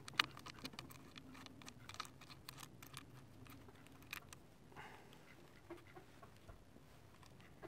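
Faint small metallic clicks and taps as a crimped ring terminal, washer and nut are fitted by hand onto a lithium iron phosphate cell's threaded terminal post. The clicks come thickest in the first three seconds and grow sparse after.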